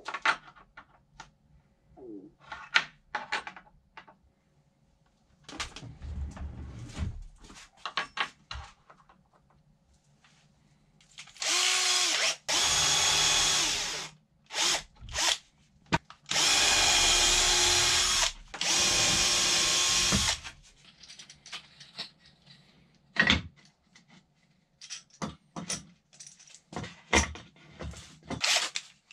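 A cordless drill-driver runs in four bursts of one to two seconds, in two pairs about halfway through, fixing a metal angle bracket to a plywood panel. Between the runs there are short clicks and knocks of parts being handled.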